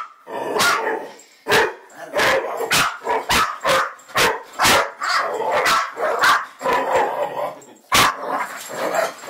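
Dog barking over and over in short barks, roughly two a second, with an especially sharp bark about eight seconds in.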